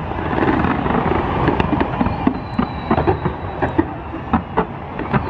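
Fireworks going off in a continuous din of crackle, with many sharp pops at irregular intervals.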